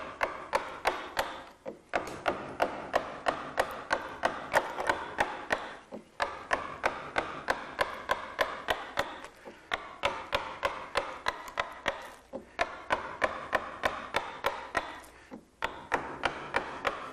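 Mallet tapping a woodcarving gouge about three times a second, in runs of several seconds with short pauses between, the gouge chipping into the wood to rough out an eagle's wing in relief.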